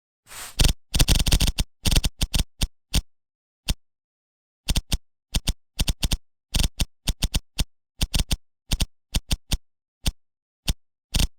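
Sharp, irregular plastic clicks and clacks of a computer keyboard's keys and keycaps being handled while it is cleaned, bunched quickly at first, then coming singly or in pairs.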